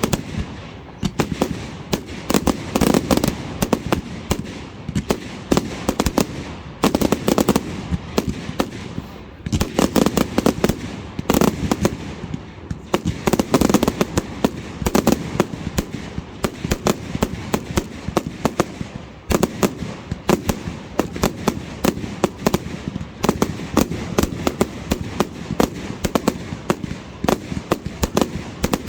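Fireworks display going off: rapid bangs and crackling pops of bursting shells, dense and continuous with no real pause.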